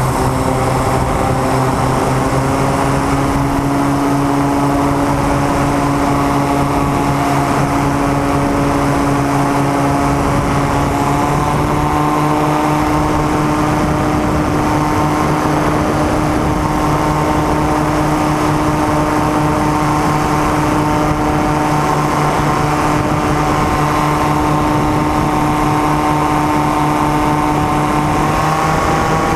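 Propeller engine of a small aircraft droning steadily in flight, heard from on board. Its pitch rises slightly about a third of the way in and again near the end.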